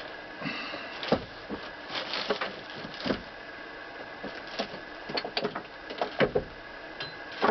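Scattered knocks, clicks and light rustling as a Singer 127's cast-iron head is handled and set upright on its wooden base.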